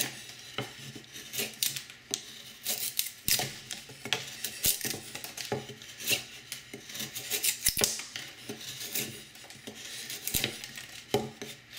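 Spyderco Mule Team knife with a Maxamet steel blade whittling scalloping cuts into a pine stick: a run of short, irregular scraping shaves with a few sharp clicks. The cuts test the edge's apex strength, and the edge is holding up.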